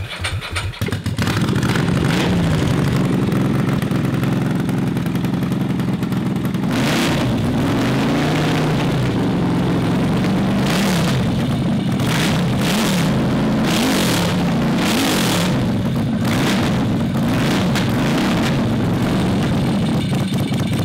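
Ducati 900's air-cooled 90-degree V-twin catching about a second in and running loud, then revved again and again from about seven seconds in, the pitch rising and falling with each blip of the throttle.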